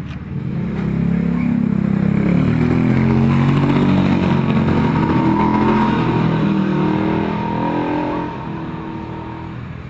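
A motor vehicle's engine running close by, its pitch rising and falling. It grows loud about a second in and fades away after about eight seconds.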